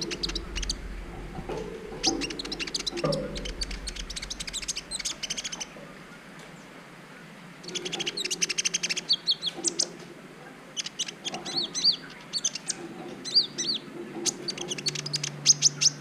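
Van Hasselt's sunbird (kolibri ninja) singing: spells of rapid, high, thin chirps and short twittering trills, broken by two short pauses, about five and ten seconds in.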